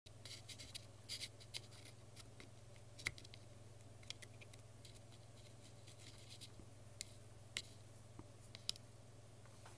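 Faint scratching and irregular small clicks of a soldering iron tip run along the pins of a small surface-mount microcontroller coated in ChipQuik low-melt solder, desoldering the chip. A steady low hum runs underneath.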